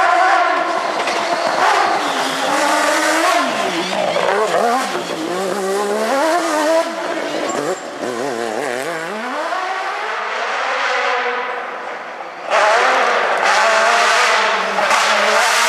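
Rally cars driven hard on a dirt forest track, each engine note rising and falling sharply with throttle and gear changes. Near the end the sound jumps abruptly to a different, louder car at full throttle.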